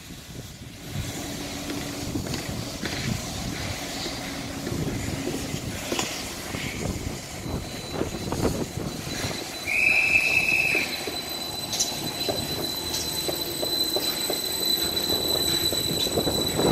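Greater Anglia Class 755 bi-mode multiple unit pulling away from the platform, its running noise building as it rolls past. A short high beep sounds about ten seconds in, and a steady high whine from the train sets in at about the same time and carries on as it gathers speed.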